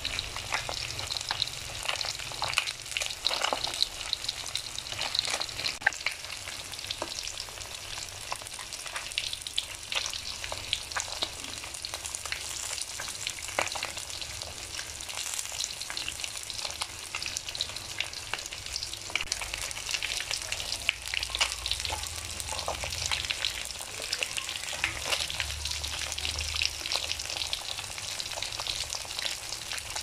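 Whole catfish frying in hot oil in a steel wok: a steady sizzle with frequent crackling pops.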